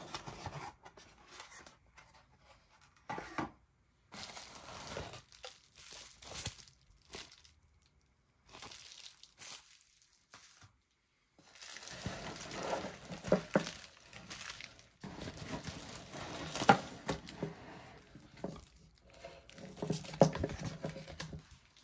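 Cardboard and bubble-wrap packaging being handled: a cardboard insert slid out of a box, then bubble-wrapped speakers lifted out. The rustling and crinkling comes in short bursts, busier in the second half, with a few sharper knocks.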